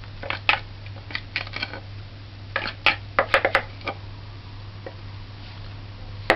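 A spoon scraping and knocking against a mixing bowl in irregular clusters of clatter as cake batter is poured out into a baking pan, with one sharp knock near the end. A steady low hum runs underneath.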